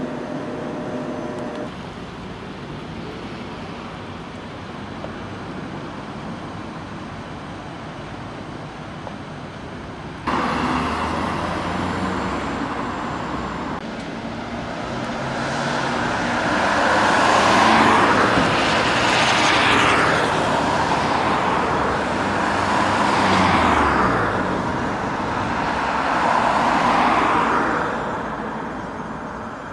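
Street traffic: steady background noise that jumps louder about ten seconds in, then about four road vehicles passing one after another, each swelling and fading away.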